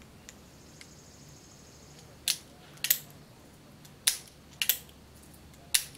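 Sharp metallic clicks of a Uberti Walker cap-and-ball revolver's action being worked, about five clicks in rough pairs, as the hammer is cocked and the cylinder turned. The action is being checked for a fragment of a fired percussion cap that may have dropped into it and be binding the cylinder.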